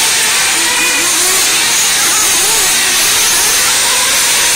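RC cars running on an indoor dirt track: a steady loud hiss with faint motor whines that rise and fall in pitch.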